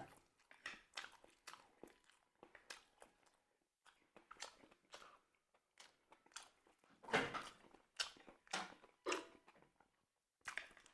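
Chewing and biting into crisp grilled bánh mì: a quick, irregular run of crunches and chews, with the loudest crunches about seven seconds in.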